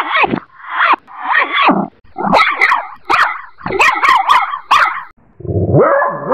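A chihuahua's bark edited with sound effects: several short barks played in reverse, then barks blended with sharp dolphin-style clicks. About five and a half seconds in comes a lower, drawn-out bark slowed to half speed.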